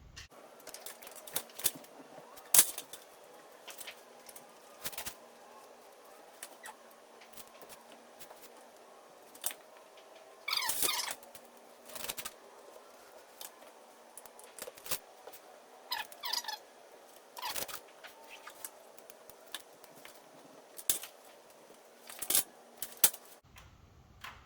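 Hands pressing a van window into its bonding adhesive around the edge: scattered taps and knocks, with two short squeaks about a third and two thirds of the way through.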